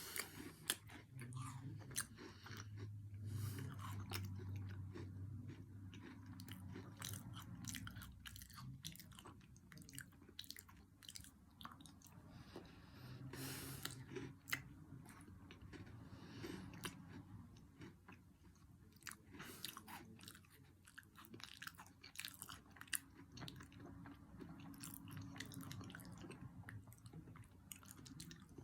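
A person chewing a Twix cookie dough candy bar close to the microphone: steady chewing with many small crunches and mouth sounds throughout, fairly faint.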